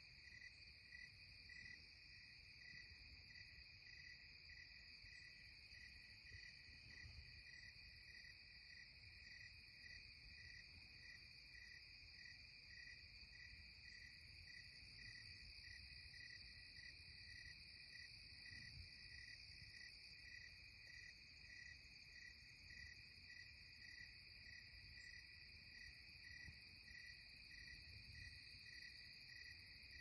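Faint dusk chorus of singing insects: a steady high trill with an evenly pulsing chirp beneath it, about two a second, over a low background rumble.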